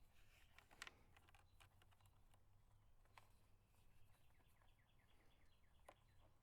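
Near silence with faint scattered clicks of small parts being handled, and a faint run of quick repeated chirps partway through.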